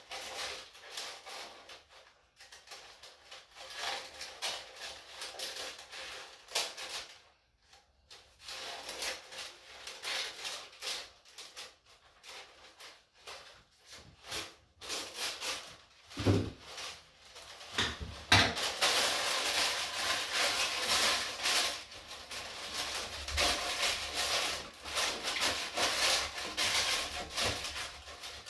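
Baking paper rustling and crinkling, first in patches as it is cut from the roll with scissors, then louder and almost continuous for the last ten seconds as the sheet is pressed down into a square metal cake tin. A couple of dull knocks come just past halfway.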